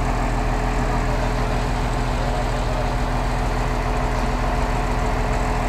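Large diesel engine of a truck-mounted crane running steadily at an even speed, a constant drone that does not rise or fall.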